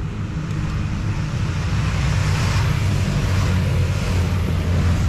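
Motorcycles approaching in the oncoming lane, their engines growing louder toward the end, over a steady hiss of wind and road noise.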